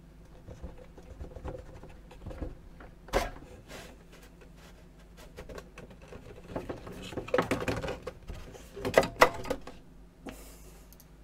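Printed circuit card being pulled out of a metal card frame and its backplane connector: scattered clicks and scrapes, a sharp knock about three seconds in, and a louder stretch of scraping and clatter from about six and a half to just past nine seconds as the board slides free.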